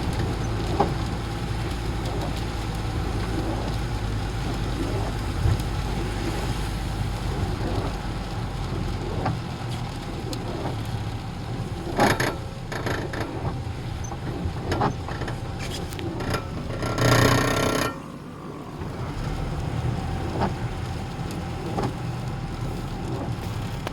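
Street traffic: vehicle engines running steadily, with scattered knocks. One vehicle passes close about two-thirds of the way through, the loudest moment.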